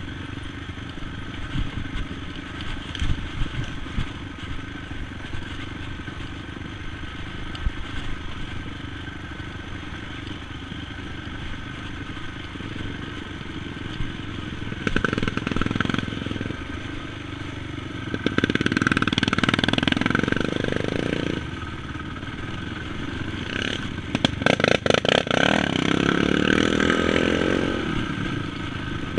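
Sport quad's engine running on a rough trail, with scattered knocks over the bumps early on. In the second half it revs harder, pitch rising and falling, with a quick run of clattering knocks about three-quarters of the way through.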